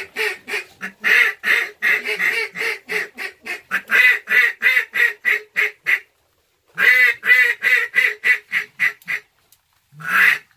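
Duck call blown in long runs of loud quacks, about three or four a second. The quacking breaks off about six seconds in, starts again, then stops briefly near the end before a few more quacks.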